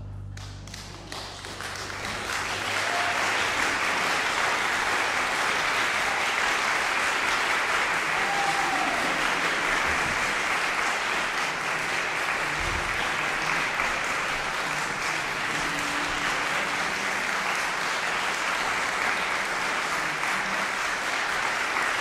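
Audience applauding after an orchestral piece ends: the last chord dies away in the first second as the clapping starts, builds over about two seconds, then holds steady.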